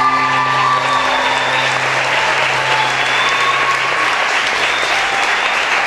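Audience applauding steadily, while the last held low note of the dance music fades out over the first few seconds.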